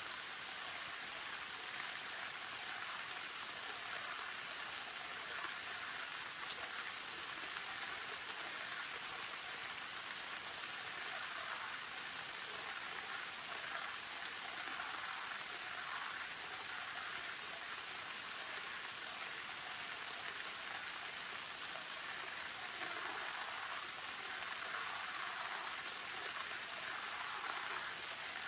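Steady rain falling, an even patter, with one sharp click about six and a half seconds in.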